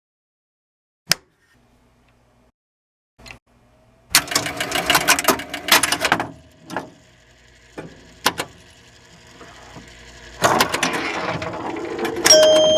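Electromechanical pinball machine mechanisms clattering: relays and coils clicking in rapid bursts, with ringing chime tones starting near the end.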